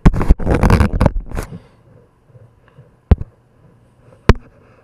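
Handling noise: loud rustling and scraping for about the first second and a half, then two sharp clicks a little over a second apart.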